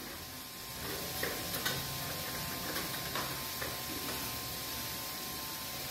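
Noodles frying in a wok with a faint steady sizzle, and a few light clicks of utensils against the pan and bowl.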